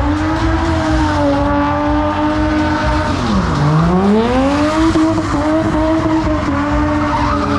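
Drift car engine held at high revs. About three and a half seconds in the revs drop sharply as the throttle is lifted, then climb back up and hold again.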